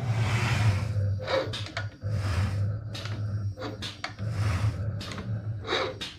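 Computerized mat cutter running a cut program without cutting: its carriage motors hum steadily, with a hiss about every two seconds and short clicks between.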